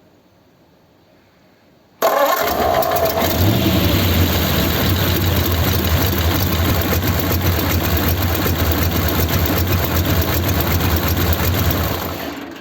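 A 1932 sedan hot rod's engine is cranked by the starter, which has a freshly replaced Bendix drive. It catches about two seconds in, runs loud and steady for about ten seconds, then dies away near the end as it is switched off.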